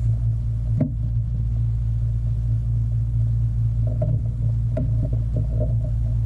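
A steady low hum and drone, with a few faint clicks and knocks about a second in and again around four to five seconds in.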